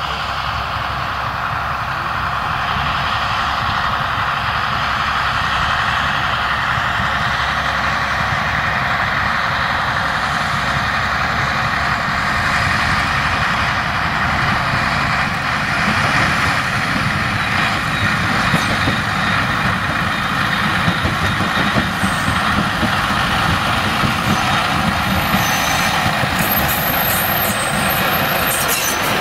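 Narrow-gauge diesel locomotive's engine running steadily as it approaches, growing louder. In the second half come sharp knocks from the wheels on the rails, and a high wheel squeal starts a few seconds before the end.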